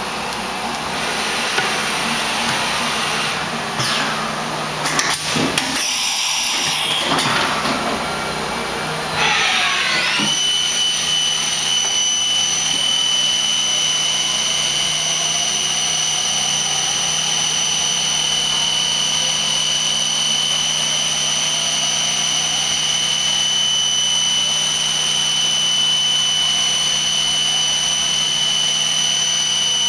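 1998 Supermax Rebel-8 CNC vertical machining center running, with a few knocks and clicks early, then a whine that rises in pitch about a third of the way in and settles into a steady high whine, typical of the spindle spinning up to speed while the table traverses.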